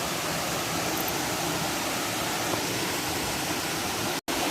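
Waterfall rushing: a steady, even roar of falling water, broken by a brief silent gap near the end.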